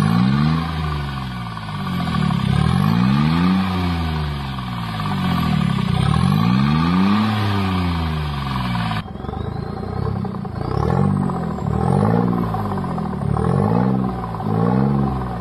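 Smart Fortwo 800cdi's 799 cc three-cylinder diesel engine revving, the pitch rising and falling in long swells about every two seconds. After a cut about nine seconds in, the swells become shorter and quicker.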